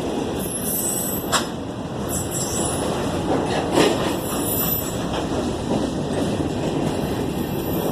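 Union Pacific manifest freight train on the move, a steady rumble of wheels on rail with a few brief high-pitched wheel squeals and a couple of short knocks.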